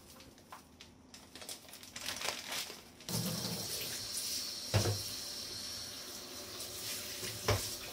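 A kitchen mixer tap turned on about three seconds in, its water running steadily into a mesh strainer of rice in a pot for rinsing, with two sharp knocks. Before the water starts there are only faint clicks and rustles of handling.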